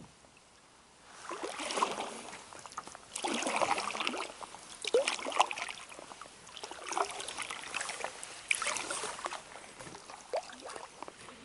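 Canoe paddle strokes in calm water: about four strokes a couple of seconds apart, each a swish of water with dripping off the blade.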